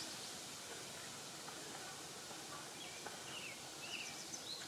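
Faint woodland ambience: a steady soft hiss with a handful of short, high chirps from small songbirds in the second half.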